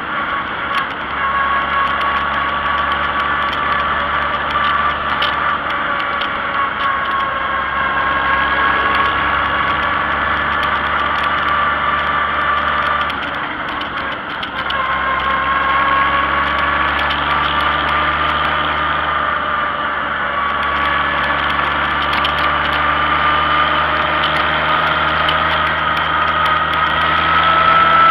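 Vintage farm tractor's engine running steadily as it travels down the road, with a whine over it that wavers slightly in pitch. The sound dips briefly about halfway through, then comes back up.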